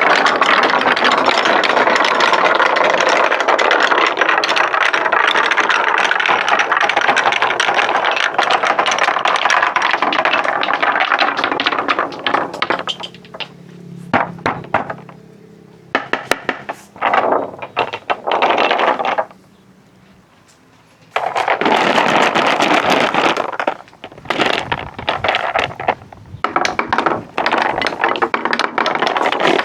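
Marbles rolling along a wooden marble run track: a dense, continuous rolling rattle for about the first twelve seconds, then separate runs of rolling broken by clicks and knocks, with a brief lull about two-thirds of the way in.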